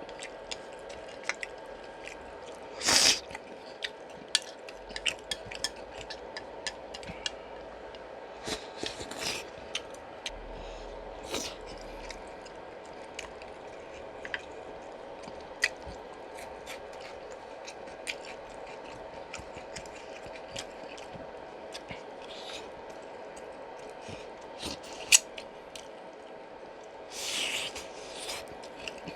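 Close-up eating sounds from pork bone soup: many scattered small clicks and wet chewing noises. Two short louder noisy sounds come about three seconds in and near the end. A faint steady hum runs underneath.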